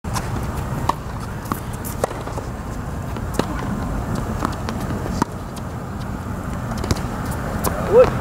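Tennis rally on a hard court: a string of sharp pops at irregular intervals from the ball being struck by racquets and bouncing, over a steady low background rumble. A brief voice near the end.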